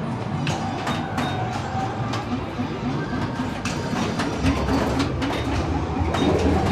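A room full of pinball machines running and being played: irregular mechanical clicks and clacks from flippers and solenoids over a steady din of machine noise.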